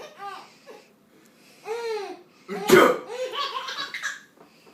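Baby laughing in short, high squeals that rise and fall in pitch, with a sudden loud burst about two and a half seconds in, followed by more laughter.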